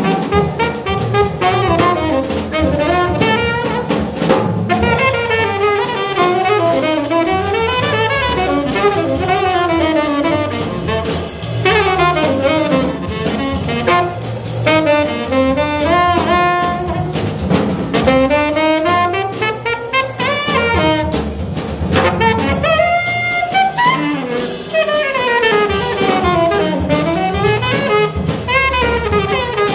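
Tenor saxophone soloing in fast runs that sweep up and down, over walking upright bass and a drum kit with cymbals, in a live jazz trio.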